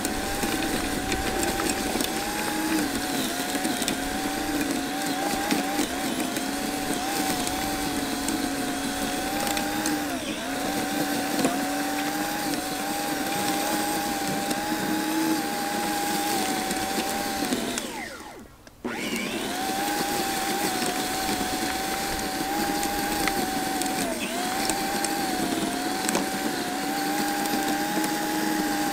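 Small electric garden tiller running steadily as its tines churn grass, wood chips and soil in a raised bed. The motor's pitch dips briefly a few times, and about two-thirds of the way through it cuts out for under a second and then starts again.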